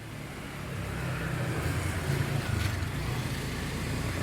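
A motor vehicle's engine running, a low rumble that swells over the first second and then holds steady.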